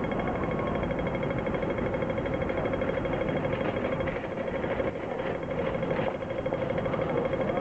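Audible pedestrian crossing signal clicking rapidly and steadily, the fast 'walk' rhythm that tells blind pedestrians the green man is lit, over general street noise.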